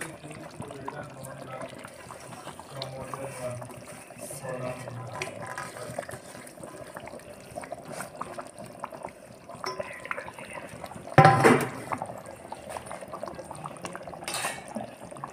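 Fish curry gravy bubbling at a boil in a pan, a steady hiss with small pops, with a short loud clank about eleven seconds in and a lighter one near the end.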